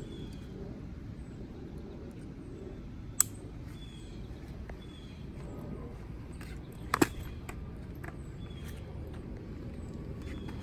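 Steady outdoor background noise with a bird chirping a short high note every second or two, and two sharp clicks, about three and seven seconds in, as riding gear is handled.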